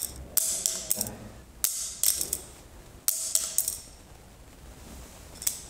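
Clothing rustling and light knocks and clicks as a pencil is set down on a tiled floor, in a handful of short bursts, the loudest about three seconds in.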